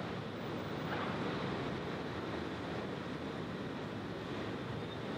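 Steady, even hum of downtown street traffic, with no distinct events standing out.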